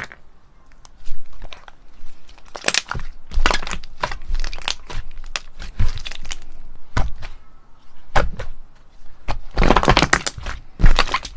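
Slime being pressed and squeezed by hand, giving a run of sharp clicks and pops that come thickest near the end.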